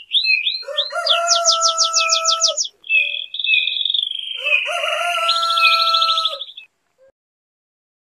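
Birds calling: quick runs of high sweeping chirps over long held notes, in a few phrases that stop short of the end.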